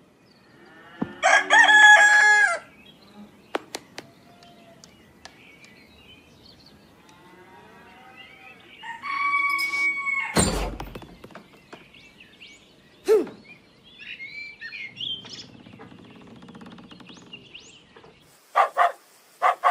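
Rooster crowing twice, first about a second in and again about nine seconds in. A heavy thud follows the second crow, then a sharp knock a few seconds later and scattered small clicks and effects.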